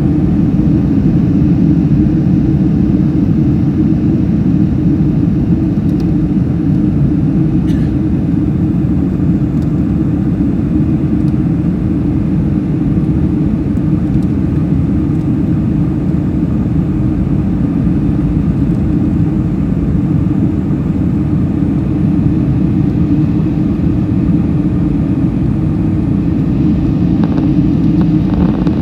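Steady, loud cabin rumble of a Boeing 747-400 in flight: its four Pratt & Whitney PW4056 engines and the airflow over the fuselage, heard from inside the passenger cabin.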